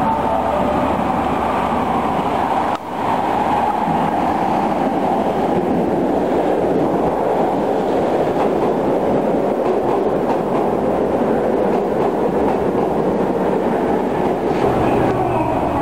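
Osaka Municipal Subway train pulling into an underground station platform, a steady, loud running noise of wheels on rail as it comes in and slows.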